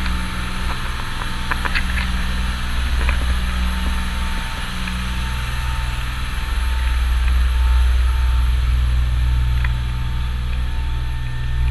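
Charter boat's engine running steadily underway: a continuous low drone with a hiss of wind and water over it.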